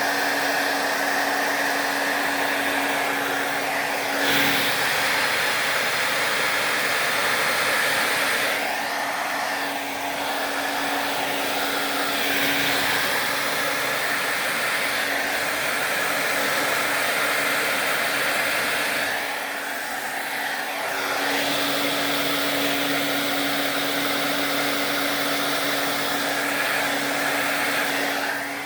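Handheld hair dryer blowing steadily, a rushing airflow with a steady hum; its sound shifts and dips briefly a few times.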